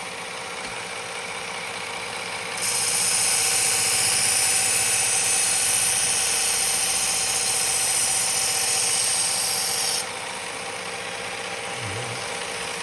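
Belt grinder running with a 120-grit abrasive belt; from about two and a half seconds in until about ten seconds the steel edge of a chef's knife is pressed to the belt, giving a louder, hissing grind, then the belt runs on without contact. The grinding is raising a burr along the edge.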